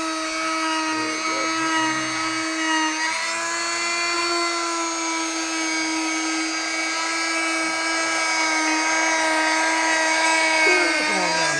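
Electric oscillating multi-tool running with a steady high-pitched whine as its blade saws into a pumpkin. The pitch dips briefly about three seconds in, then holds steady again.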